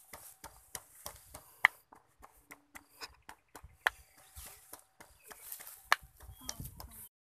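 Small sharp clicks and snaps of garlic cloves being broken apart and peeled by hand, with pieces tapping into a small wooden mortar; three louder snaps come about two seconds apart.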